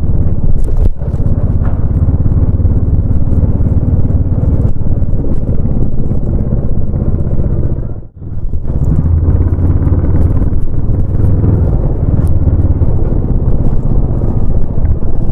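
Royal Enfield Bullet 350 single-cylinder engine running through its exhaust while being ridden, a loud, steady low thump. About eight seconds in the sound drops out for a moment, then comes back heavier.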